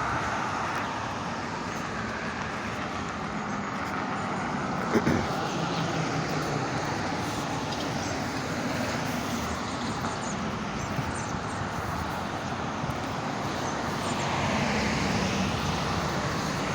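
Steady road traffic, a continuous wash of engine and tyre noise from passing vehicles, with a brief knock about five seconds in.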